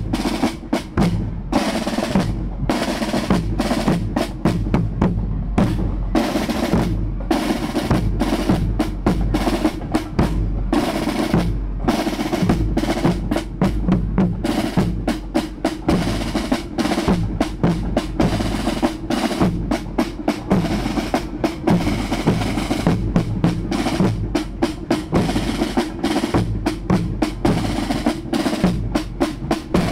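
Marching snare drums playing a fast parade cadence with rolls, in an unbroken run of sharp strokes.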